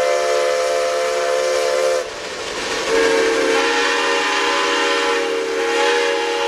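Steam locomotive whistle sounding a long, steady chord that breaks off about two seconds in, slides down briefly, then sounds again a second later and holds.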